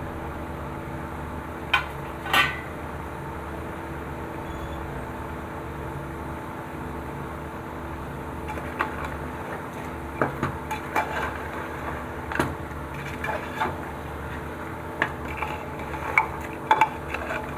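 Metal spatula clinking and scraping against an aluminium pressure cooker as meat is stirred with spices in oil, over a steady hum. Two sharp clinks about two seconds in, then frequent clinks and scrapes from about nine seconds on.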